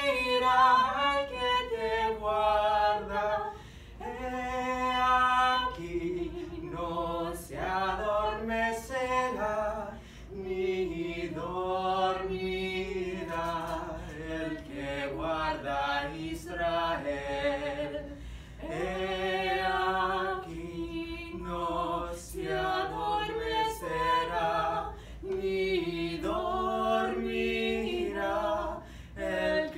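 A man and a woman singing a duet together in harmony, with no accompaniment: long held notes with short breaks between phrases.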